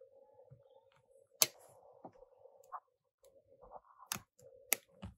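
Small sharp clicks of a plastic pry pick levering flex-cable press-fit connectors off a phone's logic board, about six in all, the sharpest about a second and a half in, over a faint steady hum.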